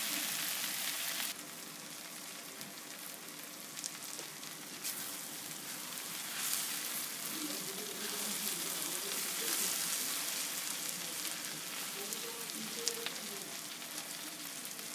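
Okra and sliced onions sizzling as they fry in ghee in a metal pan, with a spatula stirring them and clicking against the pan now and then. The sizzle drops a little in level about a second in.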